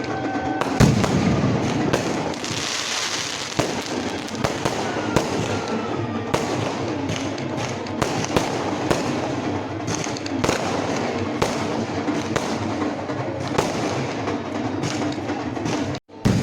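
Fireworks going off in quick succession, with repeated bangs and crackling and a faint whistling glide about five seconds in, over music. The sound drops out briefly near the end.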